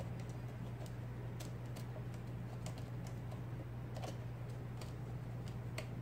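IBM Selectric typeball typewriter being test-typed: irregular single key strokes, about two a second, each a short click of the typeball striking, over a steady low hum.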